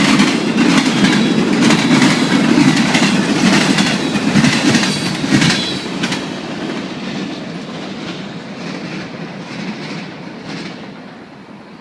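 Train passing, its wheels clicking over the rail joints in a steady rhythm. The sound fades away from about six seconds in as the train moves off.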